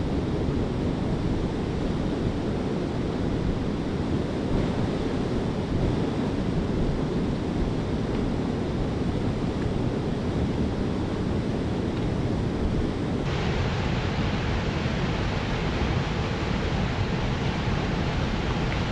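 River water rushing over rock rapids, a steady rushing hiss mixed with wind buffeting the microphone. A little over two-thirds of the way through, the sound turns brighter and fuller.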